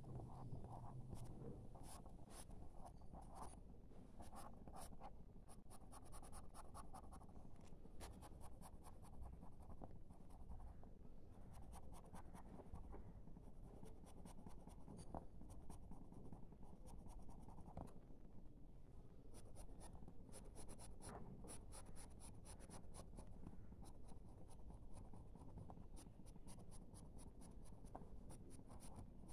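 Graphite pencil scratching on paper in runs of quick short hatching strokes, faint, with a couple of brief pauses between runs.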